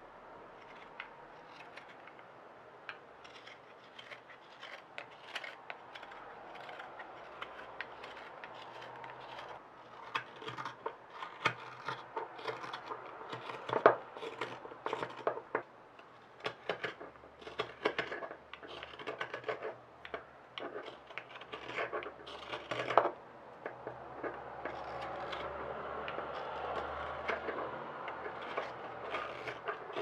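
Hook knife and straight carving knife shaving dried olivewood: many short, crisp scraping cuts, sparse at first and denser and louder from about ten seconds in. These are the final shaping cuts on the seasoned spoon.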